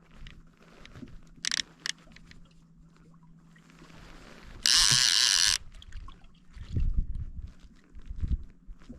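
Fishing reel's drag buzzing as a hooked fish pulls line: two short bursts, then a loud run of about a second near the middle. A couple of low knocks of boat handling near the end.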